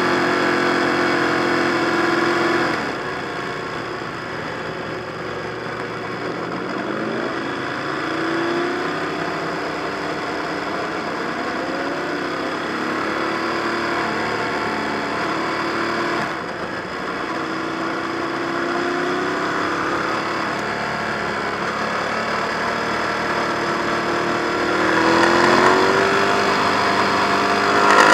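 Ducati 1098 L-twin engine, heard onboard: it holds a steady note for the first few seconds, then rises in pitch several times as the bike accelerates. There is a short drop in revs about 16 seconds in, and the engine gets louder and climbs again near the end.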